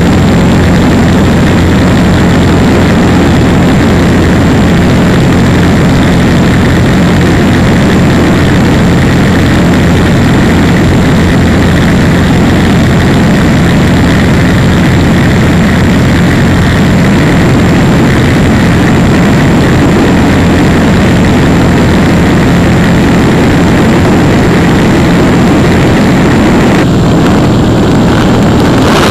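Small propeller plane's engine droning steadily in flight, heard loud from inside the cabin: an even hum with steady low engine tones.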